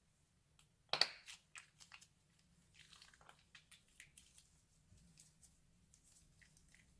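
Crunchy slime crackling and popping as it is worked by hand: one sharp crackle about a second in, then a run of small scattered crackles and squishes.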